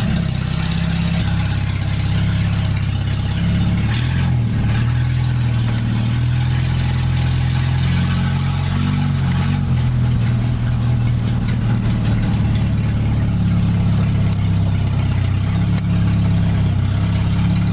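1994 Dodge Shadow's 2.2-litre four-cylinder engine running at low revs through a free-flowing exhaust, heard from inside the cabin. Brief small rises in revs about four and nine seconds in as the car is put in gear and sets off.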